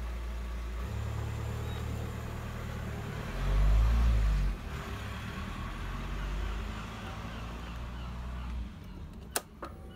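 Low engine rumble of a motor vehicle, steady at first and swelling loudly for about a second a few seconds in, then fading toward the end. A single sharp click comes near the end.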